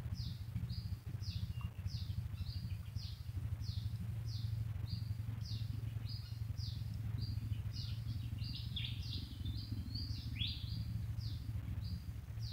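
A bird calling in a steady series of short, high notes that slide downward, about three every two seconds, with a few extra sliding calls joining in the second half. A steady low rumble runs underneath.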